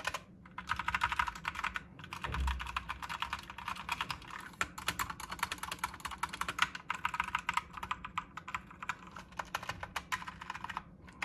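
GamePower Eva 3 mechanical keyboard with red linear switches being typed on quickly: a dense, rapid clatter of keystrokes in runs with brief pauses between them.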